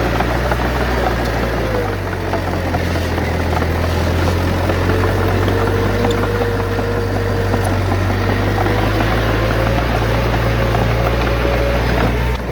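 Heavy diesel engine of earthmoving machinery running steadily, with a whine above the engine note. The engine note shifts about two seconds in and again near the end.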